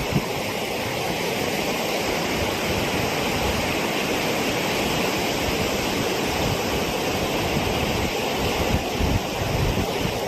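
Loud, steady rush of fast-flowing floodwater, with wind buffeting the microphone in irregular low rumbles.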